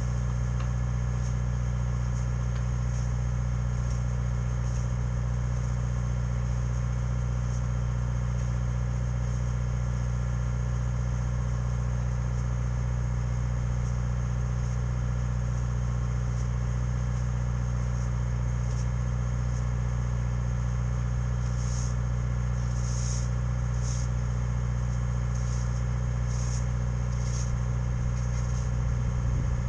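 Diesel engine of a speed swing rail machine idling steadily. A few brief, faint scratchy strokes come near the end.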